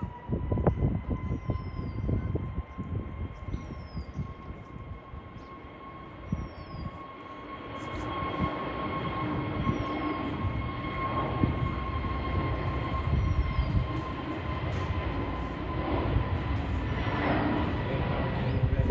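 Jet airliner engines at takeoff power: a steady roar with a high fan whine, growing louder about halfway through.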